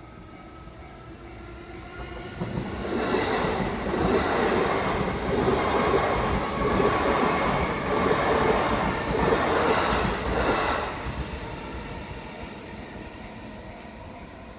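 JR Nambu Line electric commuter train passing over a level crossing: the rumble and wheel noise build about two seconds in, stay loud for roughly eight seconds as the cars go by, then fade away.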